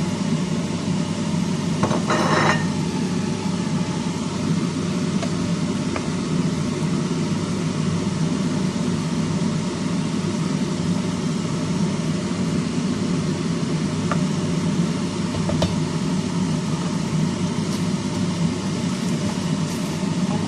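A steady mechanical hum, with a short rattle about two seconds in as peppercorns are tipped into the pan of oil, and a few faint clicks later on.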